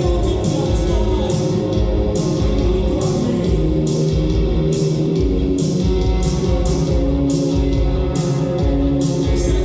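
Live rock band playing loudly, with a steady pounding drum beat about twice a second, cymbals, electric guitar and singing.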